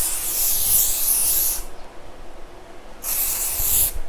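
Hairspray being sprayed onto freshly curled hair in two long hissing bursts. The first stops about a second and a half in, and the second starts about three seconds in and lasts about a second.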